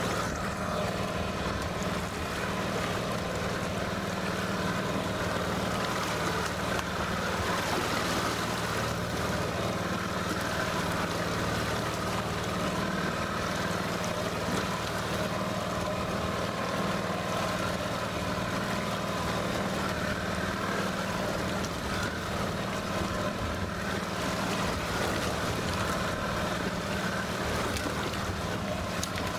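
Yamaha outboard motor running steadily, with wind and choppy water sloshing around the boat.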